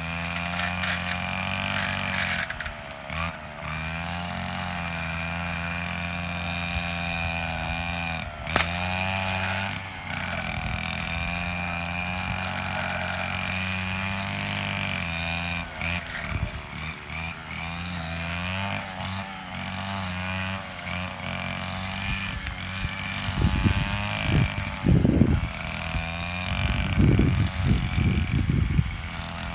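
Petrol brush cutter engine running at cutting speed, its pitch wavering up and down as the head bites into thick weeds. A few low thumps come near the end.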